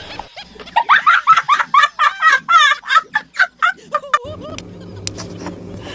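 A child laughing hard in quick, high-pitched bursts, about four a second, stopping about four seconds in; a low steady hum follows.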